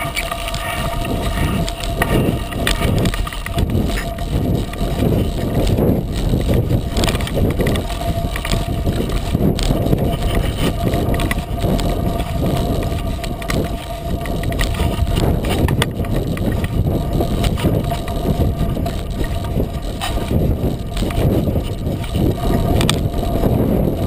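The 36-inch Coker unicycle tyre rolling downhill over a dirt and gravel fire road: a loud, continuous rough rumble picked up by a camera mounted on the unicycle.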